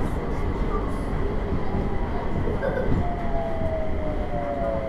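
Inside an SBS Transit Series C810 (Mitsubishi Crystal Mover) rubber-tyred light-rail car: a steady running rumble. From about three seconds in, its Mitsubishi Electric IGBT-VVVF traction whine falls in pitch as the car slows.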